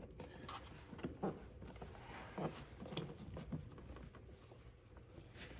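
Faint, scattered knocks and scrapes as an intake elbow is worked and twisted into place over the throttle body by hand.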